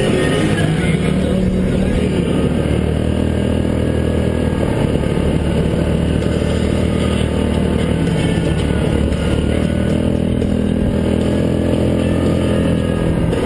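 ATV engine running under way on a trail ride. Its pitch rises and falls a little as the throttle changes.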